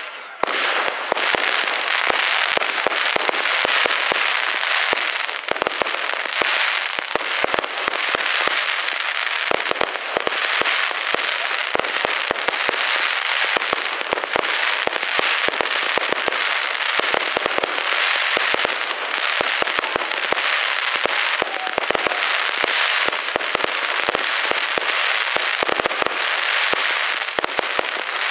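Fireworks display crackling densely and without pause, a rapid stream of sharp pops that starts abruptly just after the beginning.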